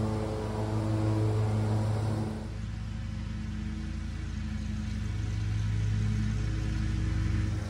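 A John Deere Z930M zero-turn mower's V-twin engine running steadily at mowing speed. About two seconds in, it drops to a quieter, lower hum from farther off, then slowly grows louder as it approaches.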